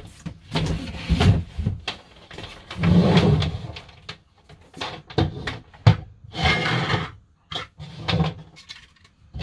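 Handling noise as Starlink kit parts and packaging are laid out on a table: irregular knocks and thumps with stretches of rustling, settling into quiet near the end.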